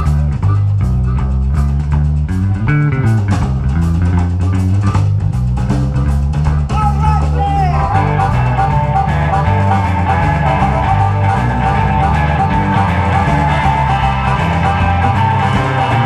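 Live blues band playing a boogie shuffle with no vocals: a walking electric bass line, drums and electric guitar. About seven seconds in, a harmonica comes in, holding long notes over the band.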